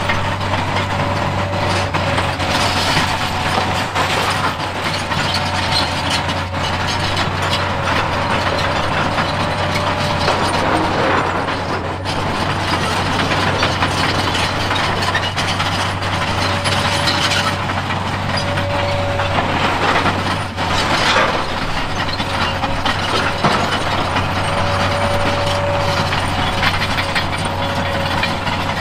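Hitachi long-reach excavator working in rock: its engine runs with a steady low hum, a thin whine comes and goes, and rock clatters and scrapes against the bucket.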